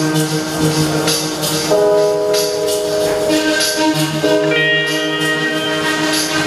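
Live band music: guitars holding sustained chords that change a couple of times, over a steady rhythm of light percussion hits.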